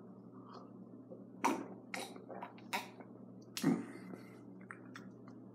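Someone drinking milk from a plastic cup: a few short, sharp gulping and mouth sounds about a second apart over a low steady hum.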